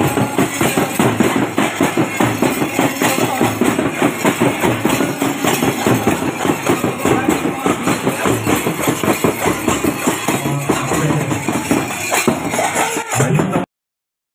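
Music with fast, dense drumming and voices mixed in; it cuts off abruptly shortly before the end.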